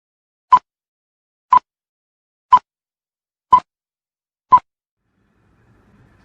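Five short electronic beeps at one steady pitch, evenly spaced one a second, followed by a faint low hiss near the end.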